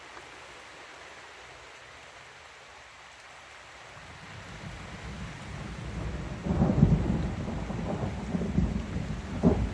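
Steady rain falling, then a long roll of thunder that builds from about four seconds in and rumbles loudly, in swells, through the rest.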